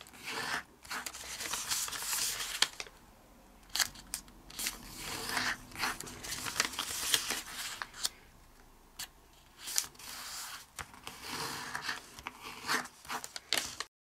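A sheet of origami paper being folded and creased by hand. It gives repeated stretches of paper rustling and scraping as fingers press and slide along the folds, with a few sharp crackles between them.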